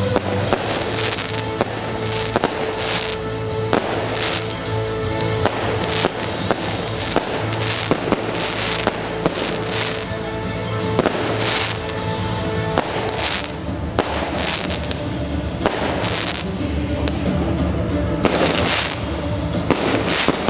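Aerial firework shells bursting overhead: a quick irregular run of sharp bangs and crackles over held chords of epic-style music.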